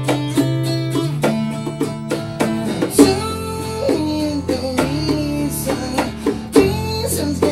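Live acoustic band music: an acoustic guitar strumming chords, with a pair of bongos played by hand tapping out the rhythm.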